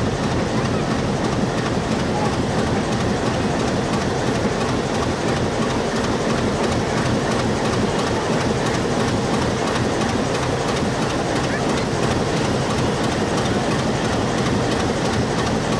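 A train rolling along the track: a steady rumble of wheels with clickety-clack over the rail joints.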